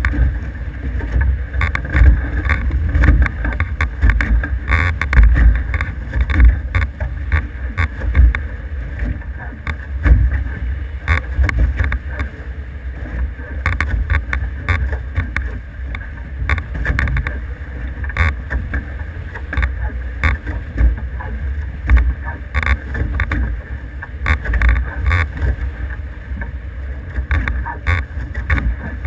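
Wind buffeting the microphone in uneven gusts, over water noise aboard an F18 sailing catamaran under way.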